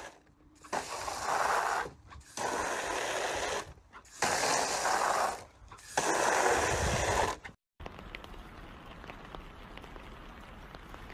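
A pistol-grip garden hose nozzle is squeezed four times, each time shooting a jet of water for about a second and a half into a plastic kiddie pool. After that comes a fainter steady hiss with light ticks.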